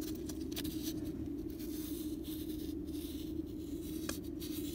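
A steady low hum in the background, with a few faint clicks and light scrapes of handling.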